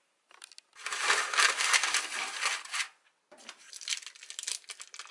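Clear plastic food packaging being torn open and crinkled by hand: a loud stretch of crackling for about two seconds, then a quieter run of crinkling.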